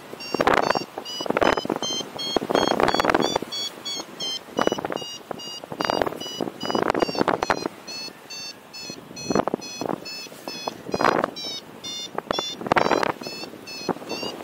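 Paragliding variometer beeping a fast run of short, high beeps, several a second, their pitch stepping up and down as the climb rate changes: the tone of a glider climbing in lift. Loud gusts of wind on the microphone come and go over it.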